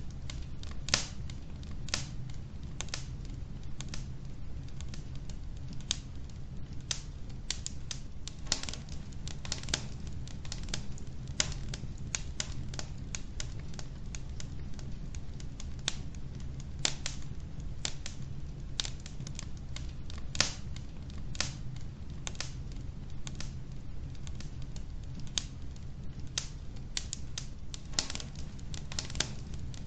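Wood logs burning in a fireplace: dense, irregular sharp crackles and pops, some louder than others, over a steady low rumble.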